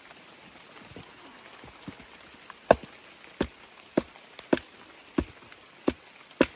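Batoning a blade through a wet log to split it for kindling: a string of sharp wooden knocks, about one every two-thirds of a second, starting a few seconds in, over a light hiss of rain.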